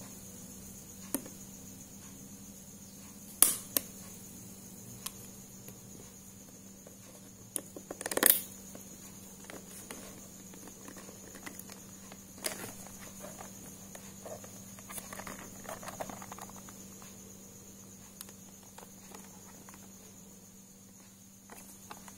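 Hard plastic accessory case being handled and opened: scattered sharp clicks and snaps, loudest about three and a half and eight seconds in, then softer rattling and rustling of the plastic.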